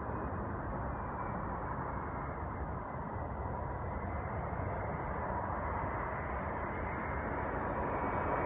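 Airbus A380's four jet engines on landing approach: steady jet noise that grows slowly louder as the airliner nears.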